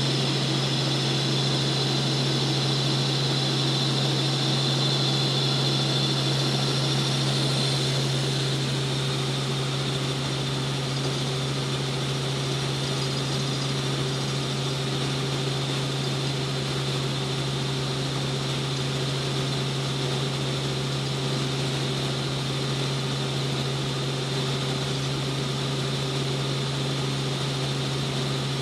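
Steady in-cabin drone of a light piston-engined helicopter in cruise: engine and rotor noise with a strong low hum and a fainter high whine, easing slightly about eight seconds in.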